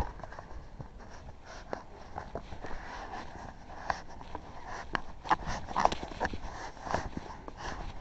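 Irregular small clicks and taps of a locksmith's lockout tools and air wedges being worked against a car door, busiest after the halfway mark.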